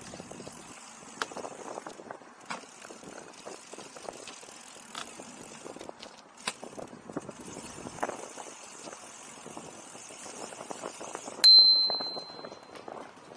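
Bicycle rolling over a rough, gritty path, its tyres crunching and the frame rattling with many small clicks and knocks. Near the end a bicycle bell is struck once, a bright ding that rings on and fades over about a second.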